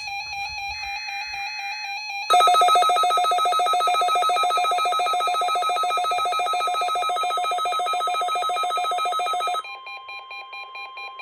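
Emergency Alert System weekly test tones from NOAA Weather Radio. The last digital header burst ends about two seconds in. A loud, rapidly pulsing electronic alert tone then sounds and drops, about a second before the end, to a quieter steady single tone near 1 kHz.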